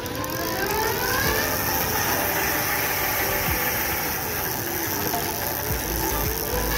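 36 V 350 W rear hub motor of an electric bicycle whining as pedal assist spins the rear wheel up, its pitch rising and falling several times as the pedals are turned by hand.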